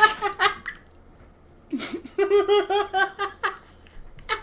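A high-pitched voice making sounds without clear words, in two stretches: briefly at the start, then for about a second and a half in the middle, with the pitch bending up and down.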